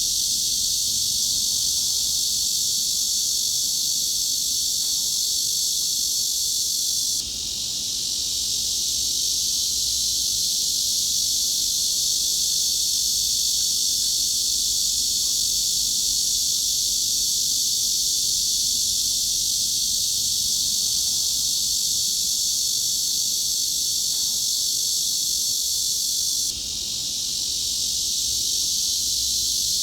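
Cicada chorus: a steady, shrill, high-pitched buzz with little in the lower range. It drops briefly and swells back twice, about seven seconds in and near the end.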